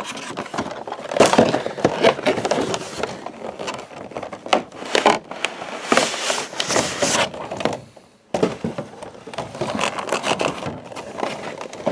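Cardboard packaging of a collector's box being pried open and handled, flaps scraping and rubbing with irregular knocks and crackles, pausing briefly about eight seconds in.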